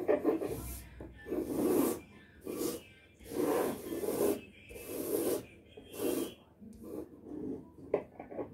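Pencil compass scratching round on drawing paper, one rasping stroke for each sweep, about one a second, with a sharp click near the end.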